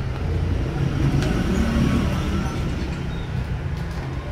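Steady low rumble of vehicle or road traffic noise.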